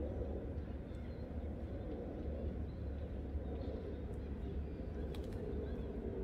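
Outdoor park ambience: a steady low rumble of distant traffic with a few faint bird chirps.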